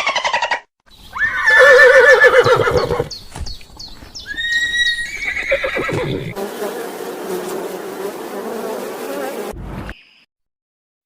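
A loud, quavering whinny from a horse or zebra about a second in, then a few shorter calls. A steady bee buzz follows for about three seconds and cuts off suddenly.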